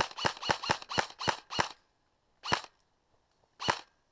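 Airsoft gun firing: about seven quick shots in under two seconds, then two single shots about a second apart.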